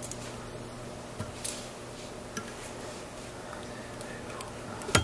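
Faint ticks and small handling noises from fly-tying tools at the vise as a whip finish is completed, over a steady low hum. One sharp click near the end is the loudest sound.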